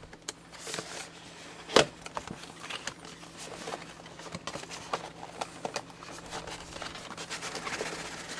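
A cardboard phone box being opened by hand: card rustling, sliding and scraping as the sleeve comes off and the flaps open, with scattered small taps and one sharp tap about two seconds in.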